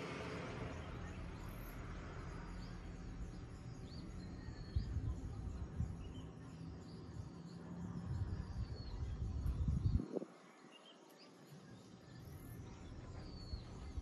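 Small birds chirping and tweeting in short, scattered calls over a louder low rumble. The rumble stops abruptly about ten seconds in and comes back near the end.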